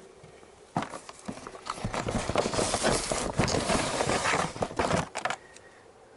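Hands rummaging through a cardboard box of spare motorcycle parts: cardboard and plastic packaging rustling and crackling, with parts knocking together. It starts about a second in and dies away about five seconds in.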